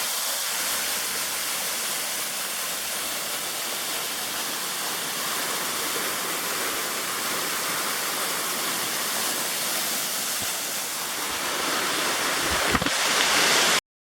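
Steady rush of falling, tumbling river water, with no other source over it. It grows a little louder near the end, where there are a few brief low thumps.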